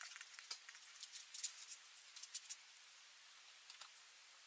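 Small metal parts of a Bosch VA diesel injection pump being handled and fitted into the pump housing: light clicks, ticks and scrapes of metal on metal, the sharpest about one and a half seconds in.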